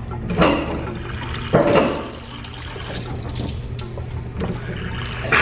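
Water running from a water cooler's push tap straight into a person's mouth, splashing as he drinks from the spout, with two louder splashes or gulps near the start.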